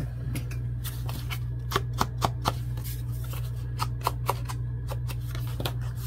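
A series of light taps and clicks as a paper tag and small craft tools are handled and set down on a cutting mat, with a quicker run of taps about two seconds in and another about four seconds in, when an ink blending tool is worked at the tag's edge. A steady low hum runs underneath.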